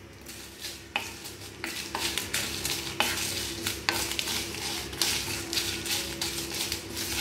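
Wooden spatula stirring and scraping whole spices and curry leaves as they dry-roast in a clay pot. The seeds rattle against the pot with a scrape every second or so.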